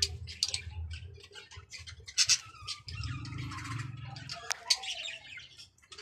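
A roomful of caged small parrots chirping and tweeting, many short high chirps overlapping throughout. There is a low hum in the middle and a single sharp click near the end.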